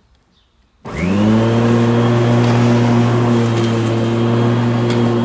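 Lawn mower engine starting up about a second in, its pitch rising briefly as it catches, then settling into a steady, loud run.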